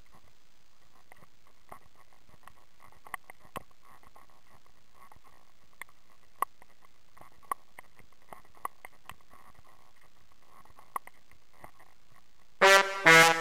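Faint, irregular clicks and taps over a low hiss. Near the end, loud brass music with held notes starts abruptly.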